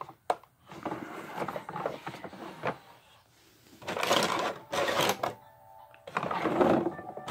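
Hard plastic toy van parts being handled: irregular rattling and clicking in several bursts, loudest about four to five seconds in and again near the end.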